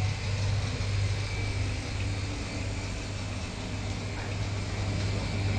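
Steady low drone of a car ferry's engines and machinery, heard from inside the passenger deck.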